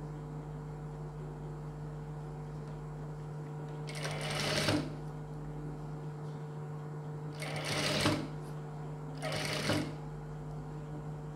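Jack industrial sewing machine stitching through blouse fabric in three short runs, about four, seven and a half and nine seconds in, each under a second long. A steady low hum is heard in between.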